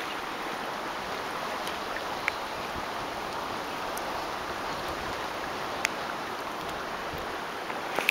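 Shallow water rippling and flowing over a sandy bed, a steady, even rushing.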